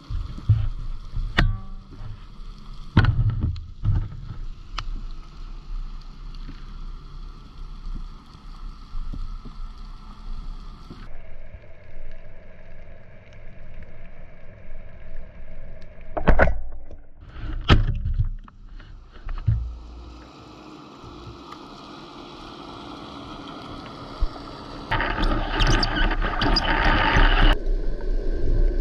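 Underwater sound picked up by a camera on a speargun during a freedive: a steady hiss and faint hum, broken by several sharp knocks, the loudest about sixteen and eighteen seconds in. Near the end comes a loud rush of water lasting a few seconds.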